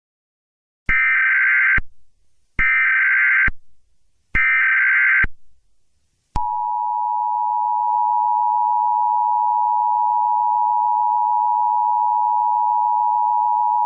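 Emergency Alert System alert opening: three loud bursts of SAME digital header data, each about a second long and a second apart, then about six seconds in the steady two-tone EAS attention signal, which holds on.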